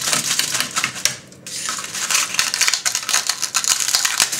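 Crisp pork crackling cracking and crunching as metal tongs break it apart on crumpled aluminium foil, with the foil crinkling. It comes as a rapid run of sharp crackles, with a short pause about a second and a half in.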